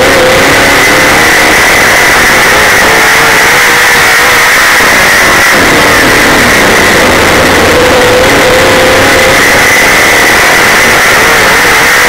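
Super late model dirt race car's V8 engine running hard at racing speed, heard loud from inside the car. The engine note wavers up and down as the car goes through the turns and down the straights, over a steady wash of noise.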